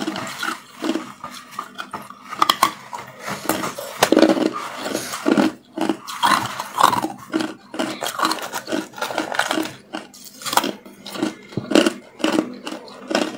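Hard white ice being bitten and chewed close to the microphone: a rapid, irregular run of sharp crunches and crackles, with the clink of ice against a metal bowl mixed in.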